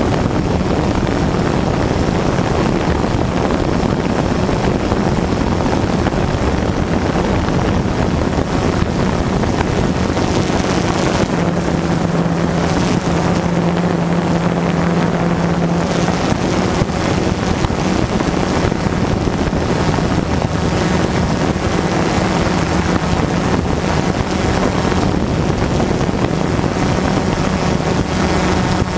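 Quadcopter drone's motors and propellers buzzing steadily as it hovers, heard through its onboard camera's microphone, with a held low hum that grows stronger for a few seconds in the middle and wind rushing on the microphone.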